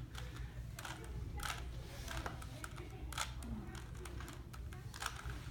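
Plastic Rubik's Cube being turned by hand: irregular snapping clicks as the layers are twisted, about eight or nine in a few seconds, over a steady low room hum.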